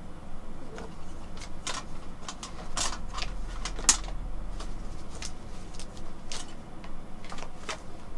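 A series of light, sharp clicks at uneven spacing, roughly two a second, the loudest about four seconds in.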